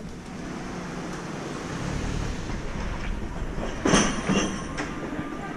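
A passing vehicle's low rumble builds over a couple of seconds, with a brief loud hiss about four seconds in.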